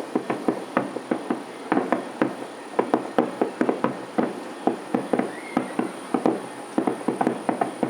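Fireworks shells bursting in quick, irregular succession, several bangs a second, heard from a distance.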